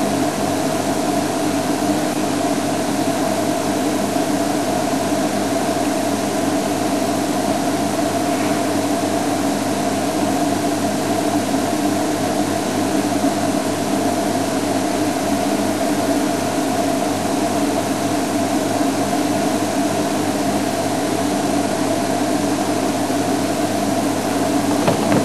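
Safari game-drive vehicle's engine idling steadily, a constant low hum over a hiss.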